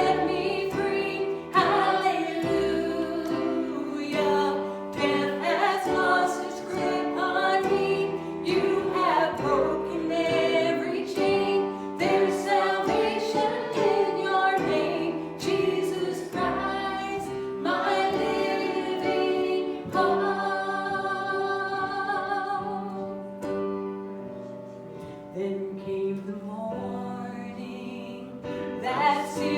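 Worship song: voices singing with steady instrumental accompaniment, with some long held notes, softer for a few seconds near the end.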